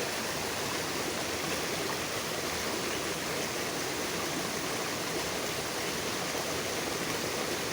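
Steady rush of flowing stream water, an even noise with no distinct events.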